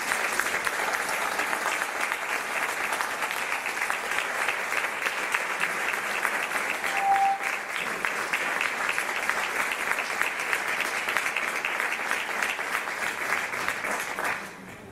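Audience applauding: dense, steady hand-clapping from a large seated crowd that dies away about a second before the end.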